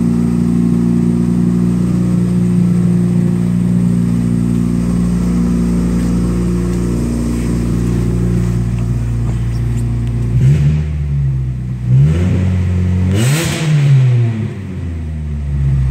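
1998 Chevy Prizm's 1.8-litre four-cylinder engine idling steadily, then revved up and let fall back three times over the last five seconds or so, the last rev the highest, to about 4,500 rpm.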